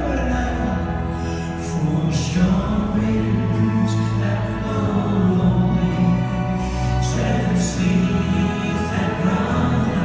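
Symphony orchestra playing a slow instrumental passage of sustained, held chords, live.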